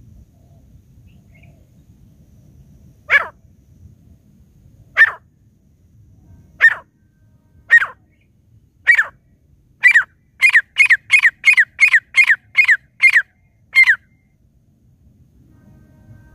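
Grey francolin (teetar) calling: loud, sharp notes that fall in pitch, first single notes one to two seconds apart, then quickening into a run of about nine notes at roughly three a second, with one last note after a short pause.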